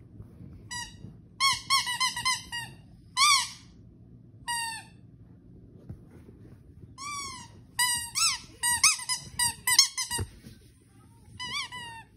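Squeaky dog toy being squeezed: bursts of short squeaks, each rising and falling in pitch, in quick clusters with pauses of a second or two between them.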